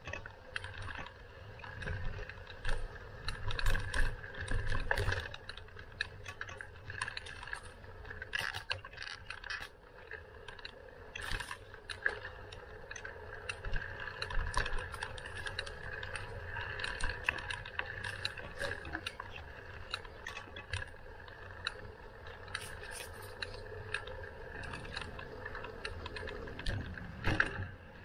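Bicycle on the move, its rear freewheel ratchet ticking as it coasts, with irregular clicks and rattles from the bike over the road surface. A low rumble swells a few times, strongest about two to five seconds in and just before the end.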